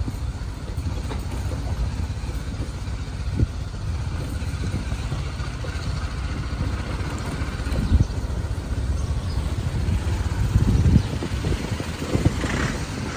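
A vehicle engine running while under way, a steady low rumble with a few short knocks, the sharpest about eight and eleven seconds in.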